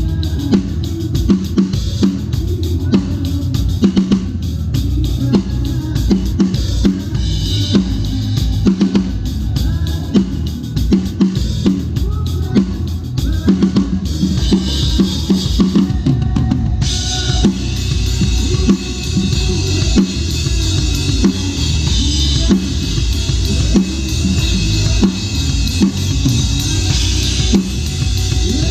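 Drum kit played in a steady groove, with kick and snare strikes driving the beat. About halfway through, a constant cymbal wash comes in over the drums.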